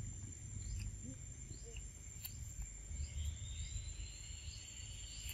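Quiet forest ambience: a steady high insect drone with faint chirps and, from about three seconds in, a thin drawn-out higher tone, over a low rumble and a few soft clicks.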